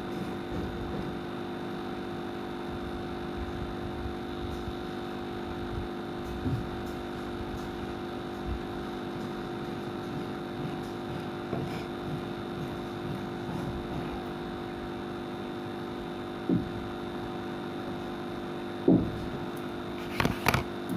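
Steady electric hum of a pedestal fan's motor running, with a few brief knocks from handling, the loudest near the end.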